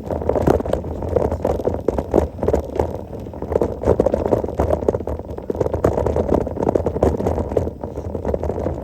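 Mountain bike rolling over a rough dirt track, its tyres crunching on grit and the bike rattling over bumps in a steady, uneven clatter.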